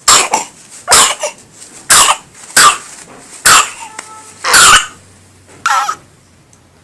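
An infant coughing over and over: about seven separate coughs, roughly a second apart, the one near the middle a little longer. It is the acute cough that the home remedy is meant to treat.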